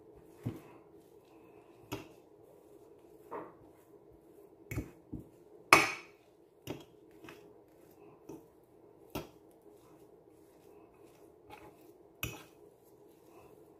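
Fork clinking and scraping against a bowl while stirring a crumbly cheese filling: irregular sharp clicks and knocks, the loudest about six seconds in.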